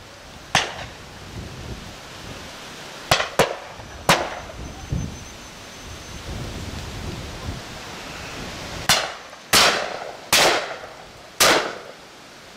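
Shotguns firing at driven pheasants and partridges, about eight shots at differing distances down the line. Two come in quick succession about three seconds in, and a run of four follows in the last few seconds.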